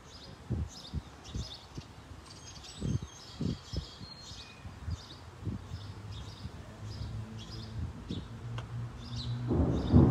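A bird chirps over and over, a short high call about twice a second. A few low thumps come in the first half, and a low rumble swells near the end.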